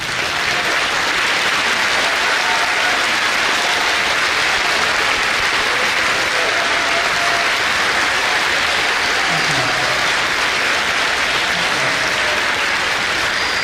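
Sustained applause from a large crowd, steady and even throughout.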